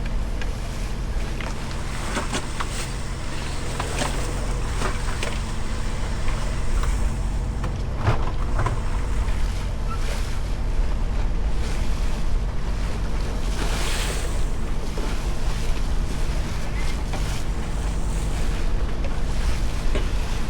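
A boat's engine running steadily, under water and wind noise, with occasional knocks and splashes.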